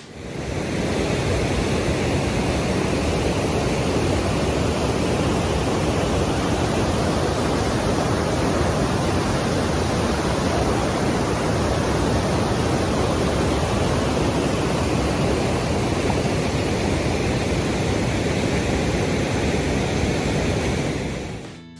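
Waterfall rushing: a loud, steady roar of falling water that fades in about a second in and fades out near the end.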